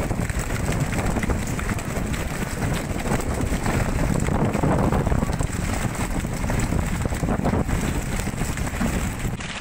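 Fishing boat under way at sea: a steady low engine rumble and rushing, splashing water, with wind buffeting the microphone.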